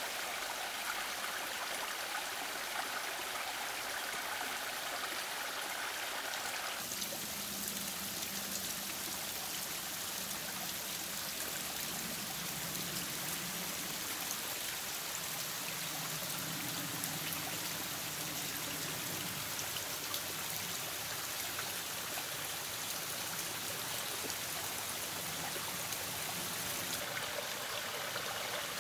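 Small brook running and trickling over stones: a steady rush of water whose sound shifts about seven seconds in.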